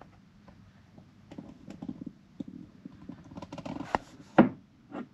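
Irregular clicks and knocks, thickening into a quick cluster about three and a half seconds in, then one sharp loud knock and a smaller one near the end.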